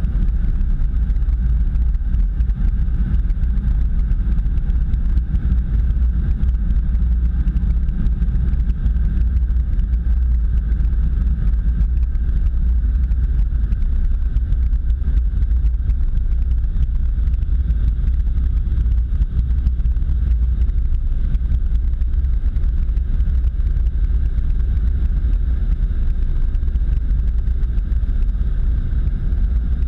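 Automatic car wash running over a car: a steady low rumble of the wash machinery and water as the overhead brush passes over the roof.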